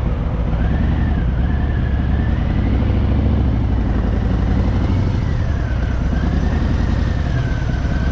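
Harley-Davidson Fat Boy's V-twin engine running steadily, with a faint thin tone wavering slowly up and down in pitch above it.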